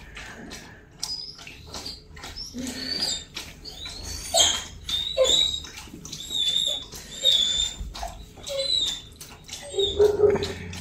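A sled dog eating from a metal bowl, with quick crunching and clicking chews, over repeated short, high-pitched dog whines.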